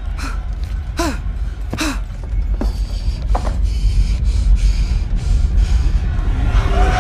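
A pole dancer's strained breathing: short, voiced exhales that fall in pitch, about one every second, from the effort of hoisting herself up the pole. A low, muffled bass from the dropped-out club music runs underneath. After about three seconds the breaths stop and the muffled music and room noise swell.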